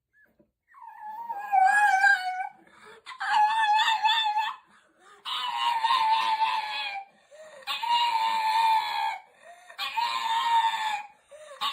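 A dog giving a series of long, high, wavering howling cries, about a second and a half each and roughly two seconds apart; the first slides down in pitch.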